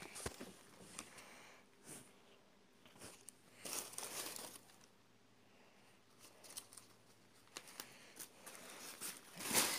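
Wrapping crinkling and rustling in short, faint bursts as it is handled and pulled apart, busiest about four seconds in and again near the end.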